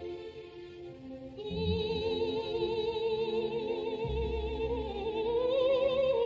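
Background music: sustained instrumental tones, then an operatic singing voice with strong vibrato comes in about a second and a half in, climbing in pitch near the end.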